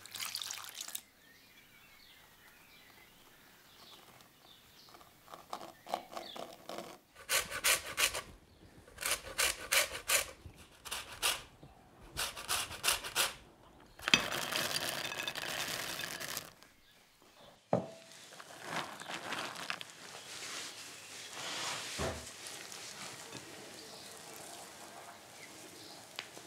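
Kitchen baking sounds: after several short bursts of noise, almonds and raisins tumble from a small glass bowl into a glass bowl of flour for about two seconds, halfway through. Hands then squeeze and rub the sticky tozzetti dough in the glass bowl, a soft continuous rubbing.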